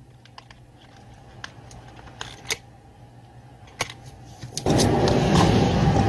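Small clicks and taps of a screwdriver on the Husqvarna 440 chainsaw's carburettor bolts and plastic housing. Near the end a loud, steady machine noise starts abruptly and runs on.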